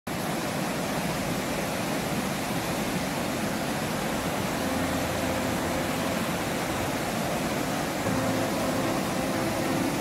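Steady rushing of a fast, rocky mountain river running in white-water rapids. A faint low hum joins from about halfway through.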